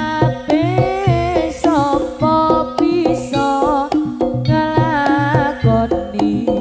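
Live East Javanese jaranan ensemble music: a loud melody that slides and wavers in pitch over steady drumming.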